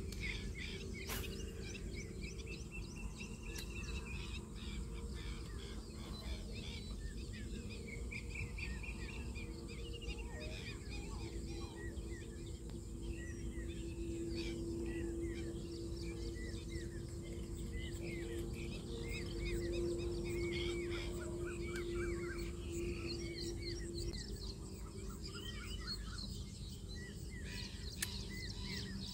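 Many small birds chirping and calling over steady outdoor background noise, with a low steady hum through the middle.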